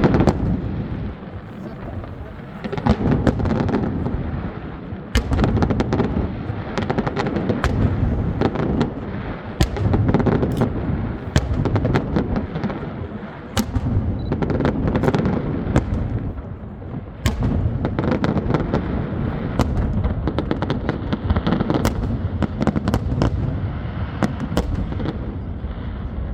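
Fireworks display going off: rapid, overlapping low booms with many sharp cracks in between.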